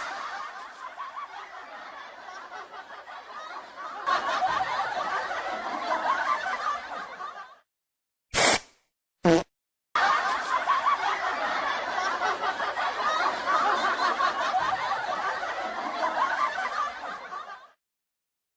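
Stifled snickering laughter in two long stretches, broken about halfway by two short, loud bursts.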